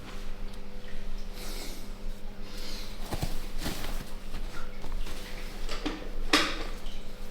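Breathing and a few short, sharp pops during a chiropractic manipulation, the loudest about six seconds in, over a steady electrical hum.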